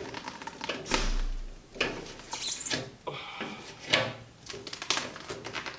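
Self-adhesive car wrap vinyl film being handled and pulled into place by hand: irregular rustling, crinkling and scraping with small knocks.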